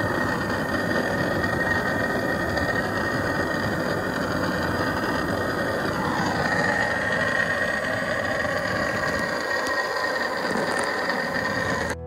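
Handheld gas torch burning with a steady hiss as its flame scorches the carved lettering on a pine door board to darken it.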